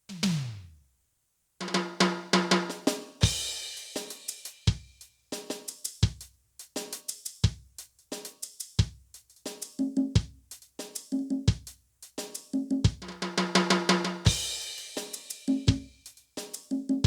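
Drum kit sounds from an Alesis SamplePad Pro electronic drum pad. It opens with one tom hit whose pitch falls away. After a short gap comes a beat of kick, snare, hi-hat and cymbal with pitched tom hits, with two fast fills, the first about two seconds in and the second near the end.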